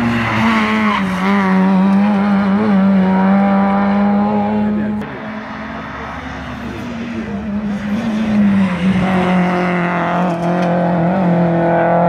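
Rally car engine running hard at high revs as the car races past and pulls away, its pitch stepping down at each gear change.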